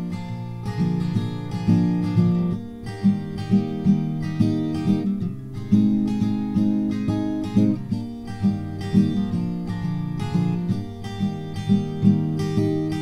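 Solo acoustic guitar music played on a Martin 000-EC28 steel-string guitar: a steady run of picked notes and strummed chords.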